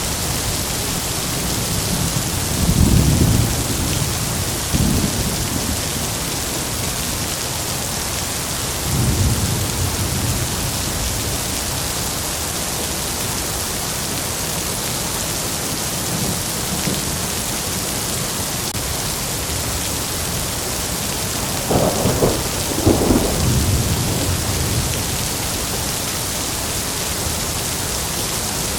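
Heavy rain falling in a steady hiss, with low rolls of thunder about 3, 5 and 9 seconds in and two louder, sharper thunder cracks about 22 and 23 seconds in.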